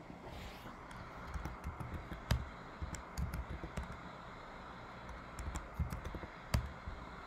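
Typing on a computer keyboard: irregular keystrokes in short quick runs, with a few louder single clicks.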